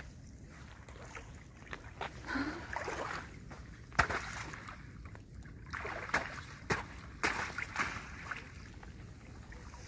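Rubber boots wading through shallow, icy seawater among broken ice plates: irregular splashing and sloshing, with sharp cracks and knocks of ice, the loudest about four seconds in.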